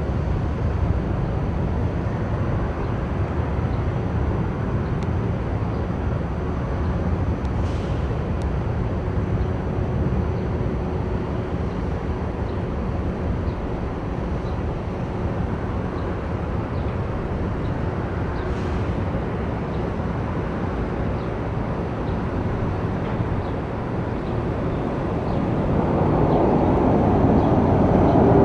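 Jet aircraft engine noise: a steady low rumble that swells louder over the last few seconds as an aircraft draws nearer.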